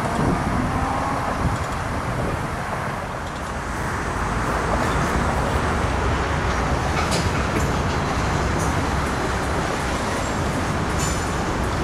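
Steady rumble of road traffic, with a few faint ticks about seven and eleven seconds in.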